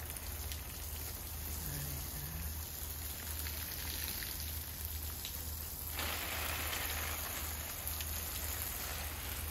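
Water spraying from watering onto plants and ground: a steady, rain-like patter. About six seconds in it suddenly gets louder and hissier.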